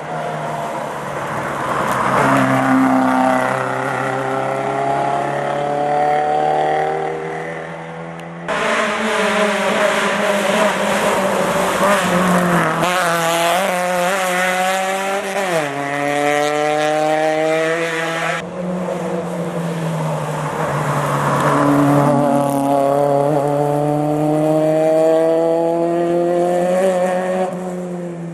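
Rally cars' engines revving hard through the gears, one car after another. Each engine's pitch climbs steadily and drops at an upshift. The sound cuts abruptly twice, giving three passes.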